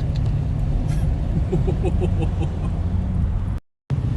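Car driving through floodwater, heard from inside the cabin: a steady low engine and road rumble, which drops out to silence for a moment near the end.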